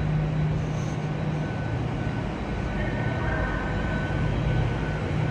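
Steady low hum of a train standing at the station platform, with faint steady high-pitched whining tones joining in about halfway through.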